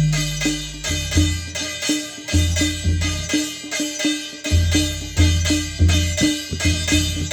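Adivasi madal drum, dhulgya drum and thali (struck metal plate) playing together in a steady rhythm, about three strokes a second. The metal plate rings on every stroke, and deep drum booms come in and out underneath.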